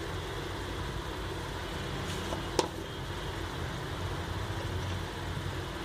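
Steady low mechanical hum, with one sharp click about two and a half seconds in.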